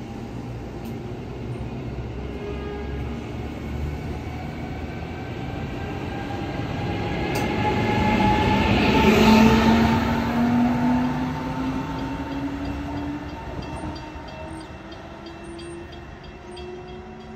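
Electric passenger train passing at speed: its sound builds to a peak about halfway through and then fades away, with tones whose pitch slides as it goes by.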